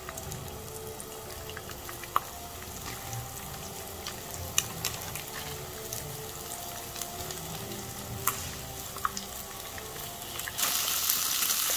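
Sausage and a garlic clove frying in olive oil in a pan, a steady sizzle with occasional sharp clicks of a utensil against the pan. The sizzle grows much louder near the end.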